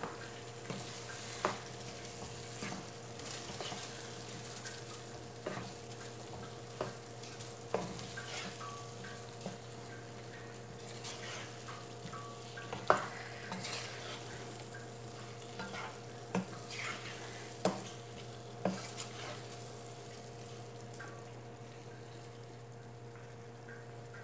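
Wooden spoon stirring potato cubes and chickpeas through a masala in a nonstick pot, with irregular knocks and scrapes of the spoon against the pot and a soft sizzle beneath. A steady low hum runs throughout, and the knocks die away about twenty seconds in.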